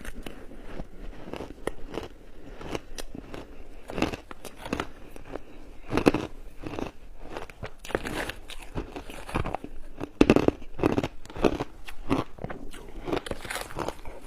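Crunchy shaved ice being bitten and chewed close to the microphone: a steady run of crackling crunches with several louder bites.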